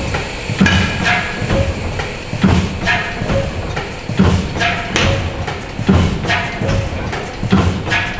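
Burmeister & Wain No. 1 single-cylinder diesel engine of 1904 running, with a slow repeating beat of heavy knocks and clatter about every one and a half to two seconds and lighter ticks between.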